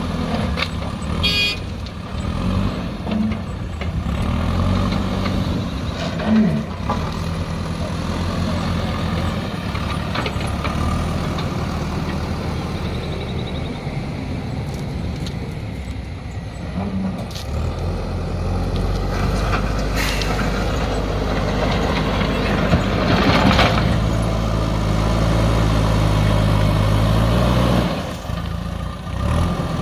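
Diesel engine of a JCB backhoe loader running, its engine speed picking up for several seconds in the second half and then dropping back near the end. A brief high squeal sounds about a second in.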